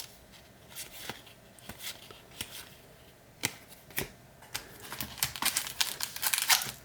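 Baseball trading cards being handled and slid against one another, giving scattered light ticks and flicks. About five seconds in, a denser crinkling starts: a pack's foil wrapper being handled.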